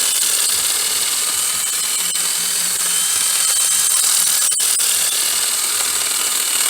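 Handheld power tool running steadily at high speed with a high whine, working the metal of a new marine battery terminal on the car battery, with a couple of brief clicks partway through.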